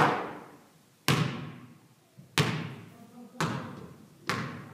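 A basketball striking the rim on a missed free throw, then bouncing four times on a hardwood gym floor, about a second apart, each impact echoing through the hall.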